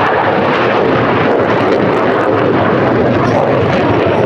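Panavia Tornado jets flying past, their RB199 turbofan engines making a loud, steady jet noise.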